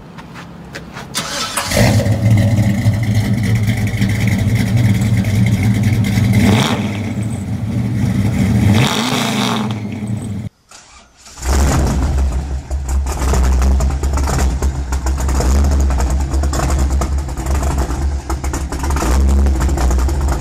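Pontiac Beaumont's V8 engine starting up about two seconds in and running, with a short rev. After a brief break near the middle it settles into a deep, steady idle.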